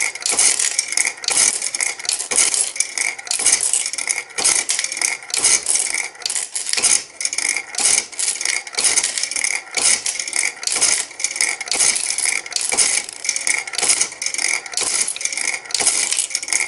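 Euro coins pouring out of a Bally Wulff FOXX slot machine into its payout tray, a fast, unbroken clinking rattle as the machine pays out a big win coin by coin.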